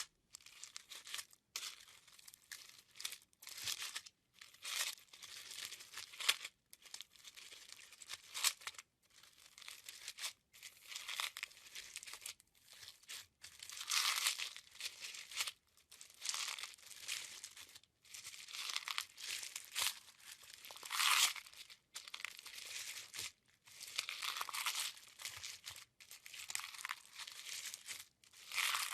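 A knife cutting into a dry bar of soap, in a run of crisp, crunchy scraping strokes one after another, with short silent breaks between clips.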